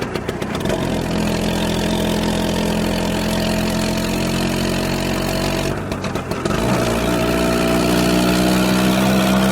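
Motor scooter engine pulled up from idle to steady higher revs under a second in. It drops back briefly about six seconds in, then picks up again and holds.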